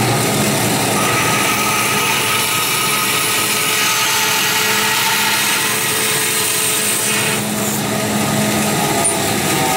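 Vertical bandsaw running and cutting through aluminum square stock: a steady sawing noise over the even hum of the machine.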